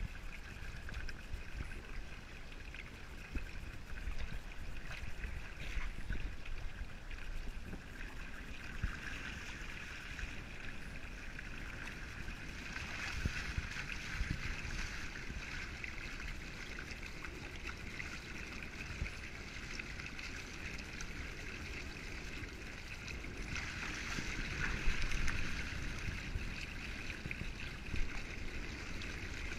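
Water rushing and splashing along the wooden hull of a small sailing trimaran under way, with a low rumble underneath. The rush swells twice, about halfway through and again near the end.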